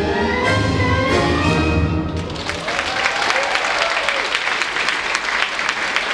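Orchestral music ends about two seconds in, and the audience breaks into applause.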